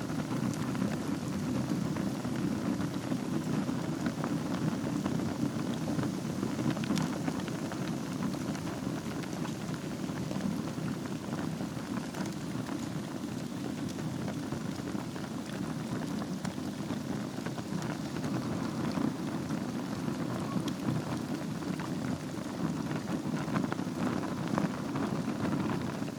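Wood fire burning in a fireplace over glowing embers: a steady low rushing noise with frequent small crackles and pops.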